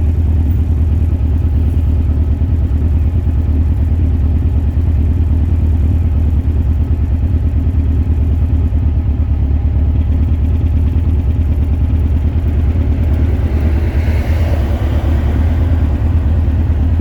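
Birkin Seven sports car engine running steadily under way, a deep, even drone with no clear revving up or down.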